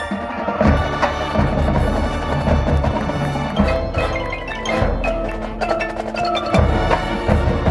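Marching band playing, with mallet percussion (marimba, xylophone, bells) and drums prominent over a heavy bass.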